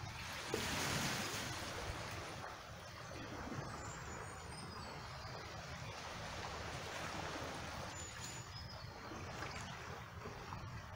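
Small waves lapping on a rocky, cobbled shore, mixed with the wash of water in a rock pool close by: a steady rushing and trickling that swells briefly about a second in.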